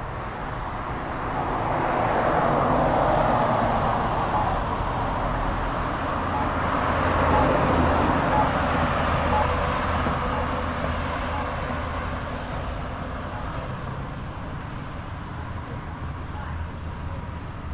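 Passing road traffic: car tyre and engine noise swells up, peaks twice and fades slowly away.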